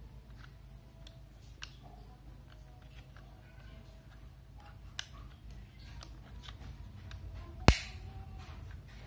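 Hard plastic parts being handled: light clicks and knocks, with one sharp, loud plastic snap about three-quarters of the way through.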